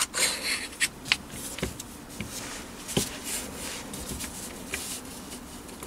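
Handling noise from an aluminium spindle housing being turned over in the hands and set down on a cloth-covered table: soft rubbing with a few short knocks, the sharpest at the very start and another about three seconds in.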